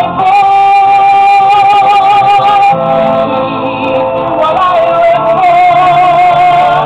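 Music with a singing voice holding long, wavering notes over an accompaniment.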